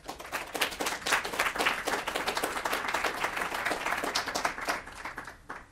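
Audience applauding: many hands clapping in a dense patter that thins out and stops just before the end.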